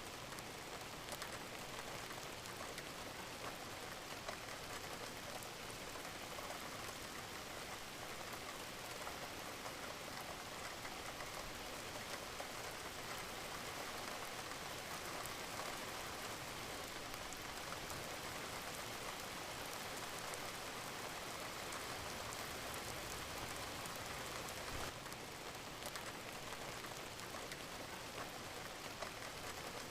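Steady rain falling, a constant hiss with the patter of drops.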